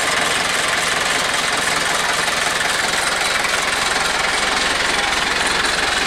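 Yanmar EF494T tractor's diesel engine idling steadily.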